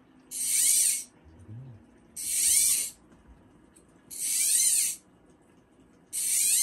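A hiss repeating in even bursts, each under a second long, about every two seconds.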